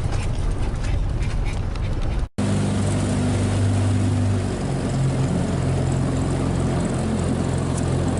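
An engine runs with a steady, low hum. The sound drops out for an instant about two seconds in, and then a steady engine hum carries on.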